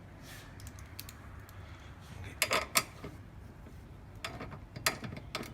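Socket ratchet clicking in short runs while the corner bar's mounting bolts are tightened, with a few sharper metallic clicks about two and a half seconds in and again near the end.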